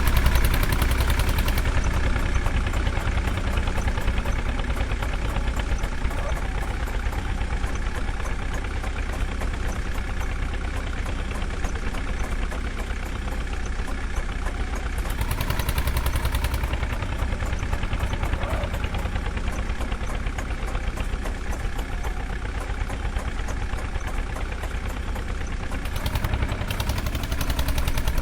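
Diesel engines of a JCB 3DX backhoe loader and farm tractors running steadily with a deep rumble, swelling louder for a couple of seconds about halfway through and again near the end.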